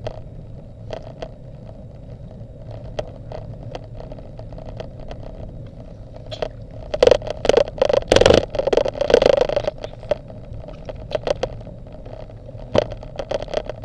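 Road bike moving over asphalt, heard through a bike-mounted camera: a steady hum with frequent clicks and rattles from the mount. About seven seconds in it swells into a dense, louder stretch of rattling and rushing noise lasting some three seconds.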